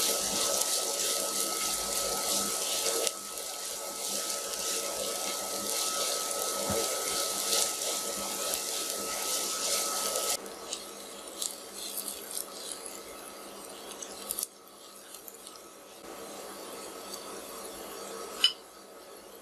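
Sliced onions sizzling in hot oil in a nonstick frying pan as they are stirred with a silicone spatula, frying toward golden brown. The sizzle is loud for the first ten seconds or so, then quieter, with a short sharp click near the end.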